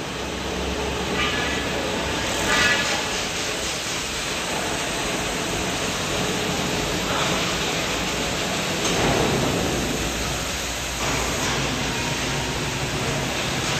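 Steady industrial din of a workshop of robotic welding cells running: a continuous noisy hum with a few brief swells.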